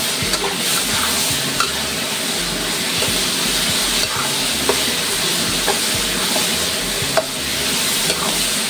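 Pork large intestine sizzling in a wok in soy sauce and rice wine while a spatula stirs it, with a steady frying hiss and scattered sharp taps and scrapes of the spatula against the pan.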